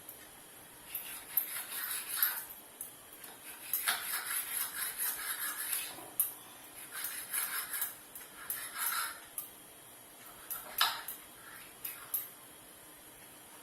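Dough for shakkar para being worked with kitchen utensils on a board: a series of scraping strokes, each about a second long, with two sharp taps near the end.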